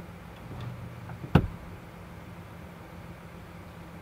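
One sharp click about a second and a half in from the 2007 Toyota Sienna's power sliding door latch mechanism as the door is worked by its button, tries to open and stops. This is the fault of a door that will not open on the button, blamed on the release actuator. A faint steady hum sits underneath.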